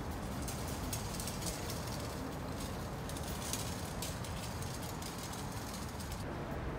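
Steady ambient rumble of a public station concourse with scattered footstep clicks; the background changes about six seconds in.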